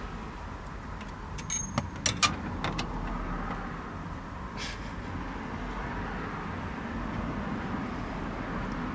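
A few sharp metallic clicks and clinks, the first ringing briefly, from small steering-column parts and tools being handled during disassembly, over a steady low background noise.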